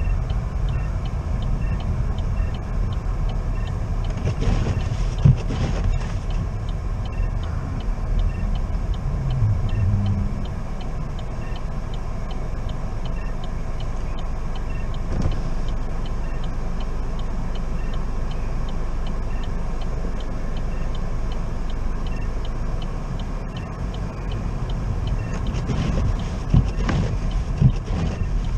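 A car's steady low engine and road rumble as it crawls along in slow traffic, with a faint regular ticking in the first half and a few sharp knocks near the end.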